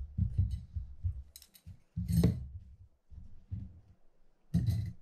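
Small metal fishing-reel parts being handled and set down on a paper-towel-covered work table: a run of dull low thuds with a few sharper clicks, the loudest about two seconds in and again near the end.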